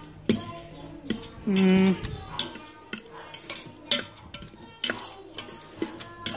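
A metal fork scraping and clinking against the stainless steel inner pot of an Instant Pot as cooked quinoa is fluffed, in a run of irregular clicks and scrapes. About a second and a half in there is a short, steady hum.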